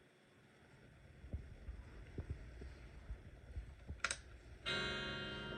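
Low handling knocks and a sharp click, then about four and a half seconds in an electric guitar chord rings out through the 1965 Fender Champ tube amp and slowly fades: the amp passing guitar signal after its power-cord and death-cap work.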